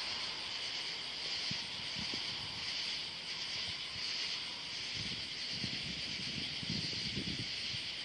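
Night insect chorus: a steady high, pulsing buzz of crickets and other insects, with a few low, muffled rumbles about five to seven seconds in.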